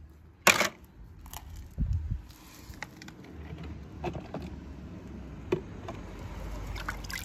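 A small toy car drops into water with a short, sharp splash about half a second in, followed by low thuds and scattered light clicks and knocks as a hand moves toy cars around under the water.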